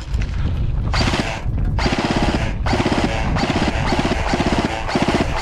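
Stock G&G F2000 airsoft electric rifle firing full auto: about six short bursts of rapid mechanical clicking, each roughly half a second long, with brief gaps between them.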